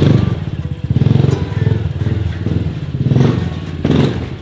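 Pit bike engine revving up and down in several throttle bursts as it is ridden.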